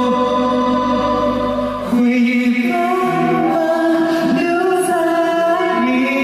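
Male voice singing a slow Chinese ballad. It holds a long note that ends about two seconds in, then moves into the next phrase with rising and falling pitch.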